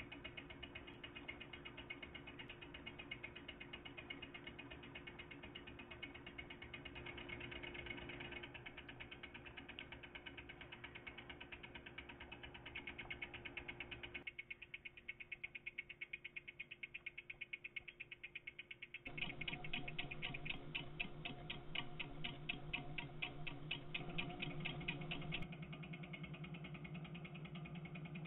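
Homemade DC pulse motor, a magnet rotor switched by a contact over a coil, running with a steady buzz and rapid clicking. About halfway through it runs slower and quieter for about five seconds, with separate ticks about three a second, as when running on 3 volts instead of 9; then it comes back louder with fast clicking.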